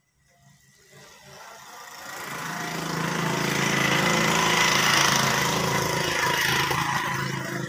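A motor vehicle's engine running with a fast, even pulse, growing louder over the first few seconds, holding, then easing off near the end.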